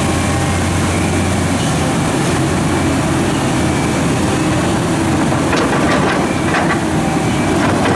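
A New Holland E385 excavator's diesel engine running steadily under load as the machine swings and works, over a steady rush of water. From about five and a half seconds in, a scatter of sharp knocks as the steel bucket strikes stones in the spoil pile.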